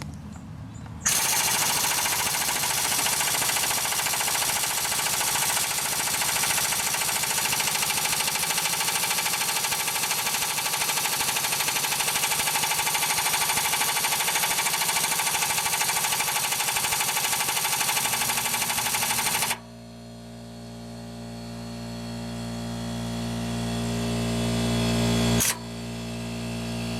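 Craftsman 1/2 in air impact wrench hammering continuously on a seized crank pulley bolt for about 18 seconds without breaking it loose. When it stops, a steady hum takes over and grows louder.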